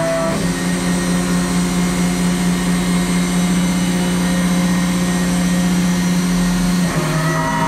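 Electric motor of a machine-shop machine running steadily under power, with a strong hum and a hiss of overtones; the hum drops slightly in pitch about seven seconds in, as if the load changes.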